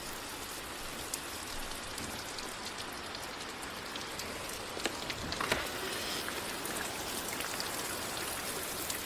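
Steady rain falling, an even hiss with scattered drips, and a couple of sharper drops about five seconds in.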